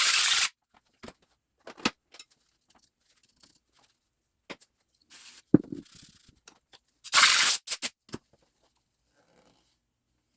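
Small metal parts of a hydraulic pump being handled on a workbench: scattered clicks and taps, with three short bursts of hiss, one at the start, one about five seconds in and one about seven seconds in.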